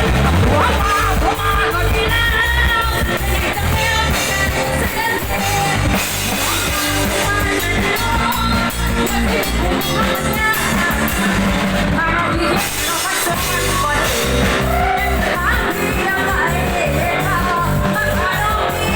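A female singer singing over band accompaniment.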